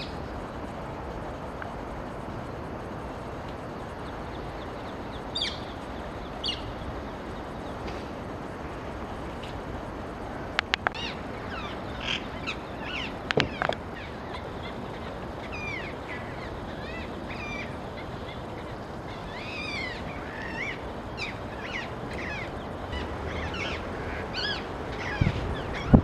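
Birds calling outdoors, many short calls over a steady background hiss, growing busier in the second half. A few sharp knocks come around the middle.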